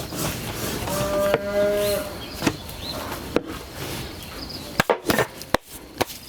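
A cow mooing once, a call about a second long, with a few sharp knocks near the end.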